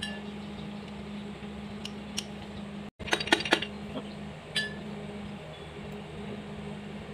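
Sharp metal clinks of a piston and connecting rod knocking against a stripped four-cylinder engine block as they are handled and pulled out. A quick cluster of clinks comes about three seconds in and one ringing clink about a second later, over a steady low hum.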